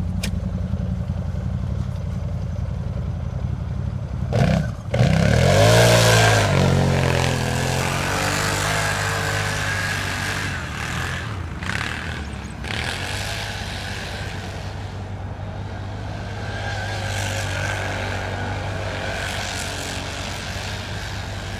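Motor vehicle engine running steadily, revving up and back down about five seconds in, then settling back to a steady run.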